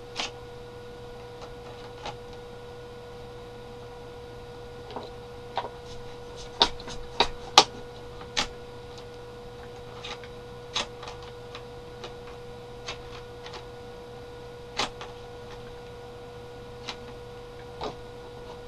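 Small hard-plastic clicks and taps as the launcher of a Transformers R.I.D. Scourge toy is worked by hand, scattered and irregular, with a busy run of sharper clicks in the middle. A steady faint electrical hum runs underneath.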